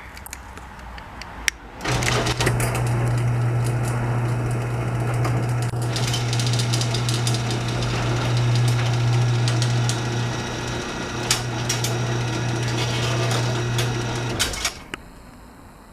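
Craftsman 139.53673SRT3 chain-drive garage door opener closing the door: a click, then the motor runs steadily with a hum and light rattle for about twelve seconds, and stops with a click near the end. It runs very quiet for a chain drive.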